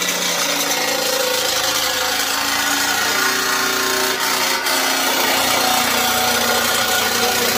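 Electric drill driving a Dicfeos double-headed nibbler attachment, running steadily as its punch cuts through 18-gauge copper sheet.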